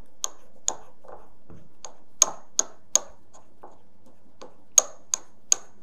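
Ceramic mortar and pestle grinding a thick aluminium-powder thermal paste, the pestle clinking against the bowl. About ten sharp, ringing clicks come at an uneven pace.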